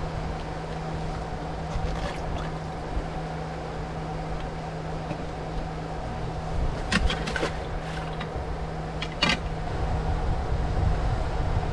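A steady mechanical hum over a low rumble of wind on the microphone, with a few sharp clicks: a cluster about seven seconds in and one more about two seconds later.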